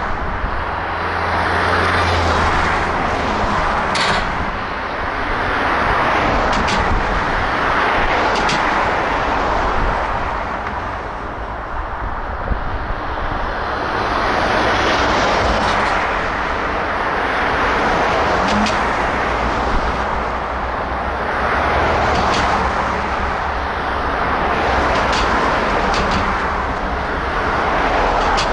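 Passing vehicles: a steady rolling noise that swells and fades every few seconds, with a few scattered sharp clicks.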